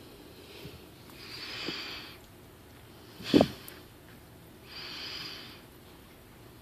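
A person breathing slowly, close to the microphone: two long breaths, about a second and about five seconds in. About halfway through comes a single short, sharp noise, the loudest sound here.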